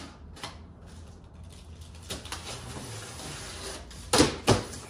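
A knife cutting open a large cardboard shipping box, the blade scraping and rasping through the cardboard, with two short, louder rasps about four seconds in.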